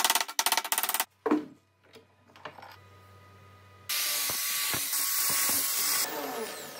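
A soft-faced mallet striking aluminium sheet clamped in a steel bench vise, a quick run of sharp blows for about a second. About four seconds in, an angle grinder grinds the aluminium angle bracket for about two seconds, then winds down.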